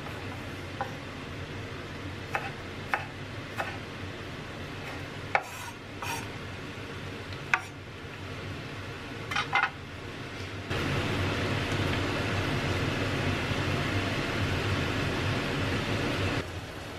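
Kitchen knife slicing chives on a wooden cutting board, with scattered sharp taps of the blade on the board over the first ten seconds. Then a steady hiss for about six seconds that starts and stops abruptly.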